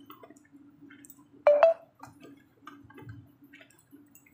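Cut okra pieces dropped into a pan of simmering vegetables, with small ticks and light splashes from the bubbling liquid over a faint steady hum. About a second and a half in, a loud ringing clink, twice in quick succession.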